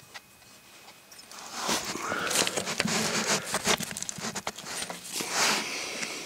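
Handling noise as a rusty pipe is gripped and worked by hand over gravel: scraping and many irregular clicks, starting about a second and a half in.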